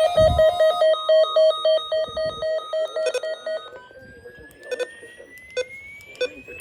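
Electronic alarm tones beeping rapidly, about four a second, and stopping about three and a half seconds in, while a single tone rises steadily in pitch. A few sharp clicks follow.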